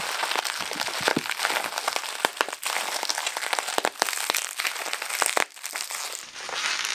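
Plastic bubble wrap crinkling and crackling with many sharp clicks as a lens is unwrapped from it by hand.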